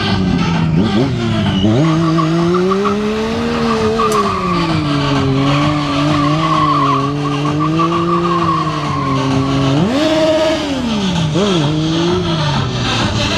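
Stunt motorcycle engine held at high revs in a burnout, its rear tyre spinning on the tarmac and squealing. The revs climb about two seconds in and hold with small rises and falls. They surge again near the end and then drop.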